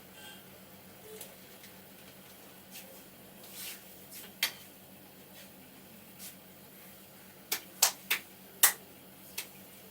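Sharp clicks and cracks from a barber's hands during a head massage: one about halfway through, then a quick run of four close together near the end, followed by a fainter one.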